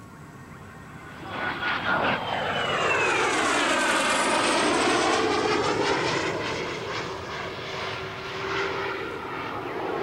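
Kawasaki T-4 twin-turbofan jet trainer making a low display pass. Its engine noise swells suddenly about a second in and peaks with a falling whine, then eases to a steadier, quieter drone as it pulls away.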